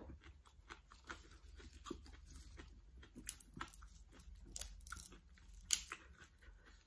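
Close-up biting, crunching and chewing of crisp raw vegetables, with several sharper, louder crunches in the second half.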